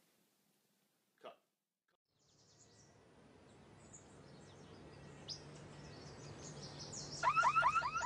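Birds chirping over a low steady hum that fades up after a couple of seconds of near silence, with a single short sound about a second in. About seven seconds in, a car alarm goes off: a loud, rapid series of rising chirps, several a second.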